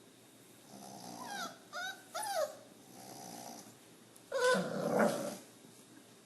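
Sleeping dog snoring softly, breaking into a few short high whimpers after about a second, then a louder drawn-out groan about four and a half seconds in, before it settles back to snoring.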